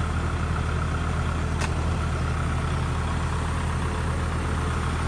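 Diesel engine idling steadily with no revving, and a single faint click about one and a half seconds in.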